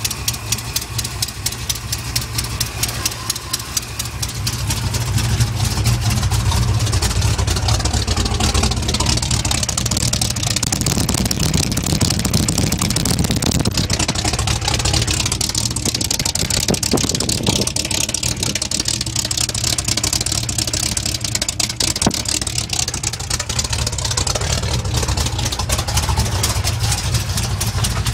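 406 cubic-inch Chevy V8 running while its carburetor is tuned, with rapid, even firing pulses. It comes up to a higher, louder speed about five seconds in and holds there.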